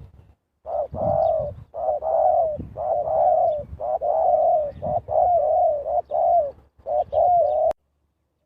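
Spotted dove cooing, a decoy bird calling to lure wild doves: a long run of low, mellow coos with short breaks between them. It cuts off suddenly with a click near the end.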